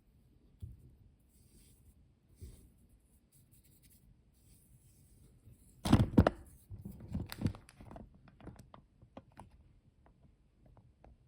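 Fly-tying handling sounds at the vise: faint rubbing and scratching as thread and fibres are worked by hand, then a cluster of knocks about six seconds in, followed by a run of small clicks that thins out.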